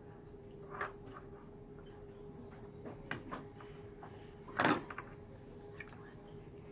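Tableware knocking: a plate and fork clinking and clunking against a plastic meal tray base, a few light knocks and one louder clunk about four and a half seconds in. A steady faint hum runs underneath.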